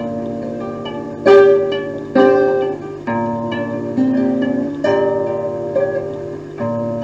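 Music played back from a cassette on a Muza 7 player: an instrumental passage of plucked-string chords struck about once a second, the loudest about one and two seconds in, over a steady low bass.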